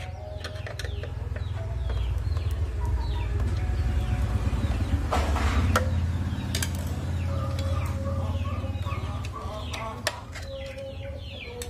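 Chickens clucking in the background with many short, high falling chirps over a steady low rumble. A few sharp clicks and a brief rustle come from handling the plastic motorcycle headlight housing while the stock bulb is taken out.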